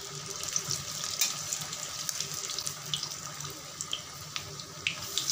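Batter-coated fish-roe pakoras deep-frying in hot oil in a kadai: a steady sizzle with scattered small crackles and clicks as a slotted spoon turns them over.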